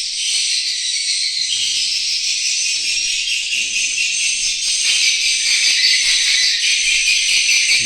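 Swiftlet-house speaker playing a swiftlet call recording as dense, steady high chirping, getting a little louder about five seconds in. The call comes out distorted into a squirrel-like chatter, the sign of a faulty speaker.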